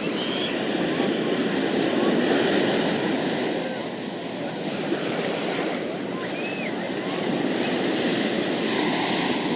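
Ocean surf washing onto a beach, swelling and easing every few seconds, with a few faint high-pitched calls above it.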